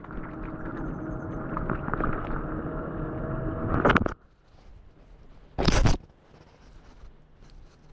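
Passing road traffic: a steady vehicle hum that cuts off abruptly about four seconds in. Then faint rustling and scraping of wet leaves under a hand rake, with one brief loud noise just before six seconds.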